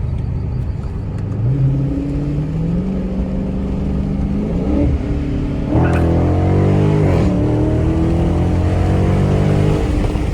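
Dodge Charger Scat Pack's 392 HEMI V8 accelerating, its note climbing steadily. About six seconds in the engine suddenly gets louder under harder throttle, rises, and drops back about a second later as the transmission upshifts, then runs on steadily.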